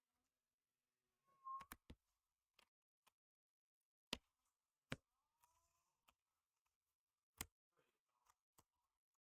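A few sharp, scattered clicks and taps of cards being set down on a table.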